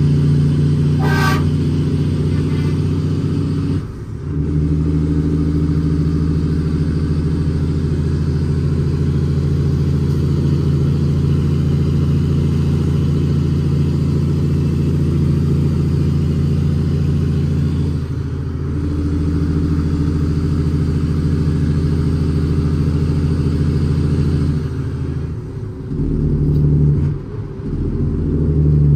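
Cummins ISX inline-six diesel of a fully loaded International ProStar dump truck pulling steadily, heard from inside the cab. The drone breaks briefly about four seconds in and again around eighteen seconds as gears are changed on the 18-speed transmission. The engine speed goes up and down unevenly near the end, and a brief high chirp sounds about a second in.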